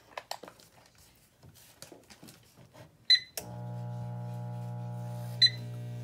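A few light taps on a Maytag microwave's touch keypad, then a key beep about three seconds in. The oven starts running in diagnostic test 3 with a steady electrical hum, and a second beep sounds near the end while it keeps running.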